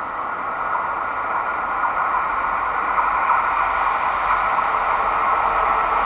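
Container freight train behind a pair of Renfe class 289.1 locomotives drawing near, the rumble of wheels on rail growing steadily louder. A high hiss or squeal from the wheels rides over it from about two seconds in until nearly five seconds.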